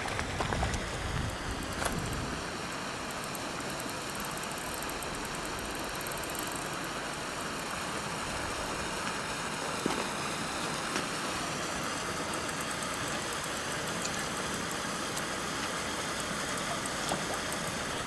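Steady rush of water gushing into a pond from an underwater inflow, with a hooked fish splashing at the surface in the first couple of seconds.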